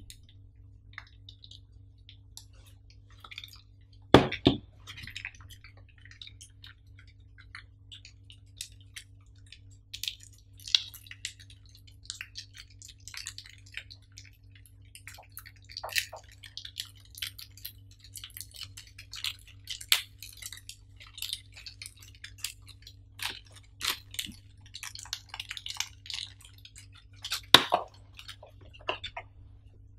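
Clear plastic packaging bags crinkling and rustling as small cable accessories are unwrapped by hand. A few sharper clicks and knocks come through, the loudest about four seconds in and near the end, over a faint steady low hum.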